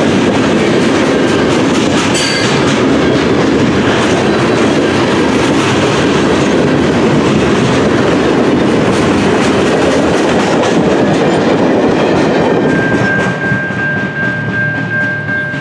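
Freight cars of a Canadian National train rolling past, steel wheels running over the rails. The last cars clear about thirteen seconds in, and the noise drops, leaving a fainter rumble and a steady high tone.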